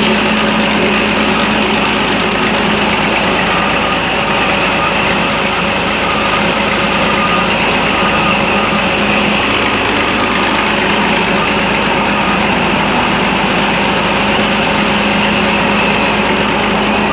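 Small cotton ginning machine running steadily while raw cotton is fed through it and seeds are stripped out. It gives a loud, even machine drone that does not change.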